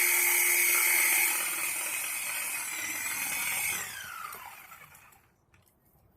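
A power saw running at a steady whine. It eases off about a second in, then winds down in pitch and coasts to a stop about four to five seconds in.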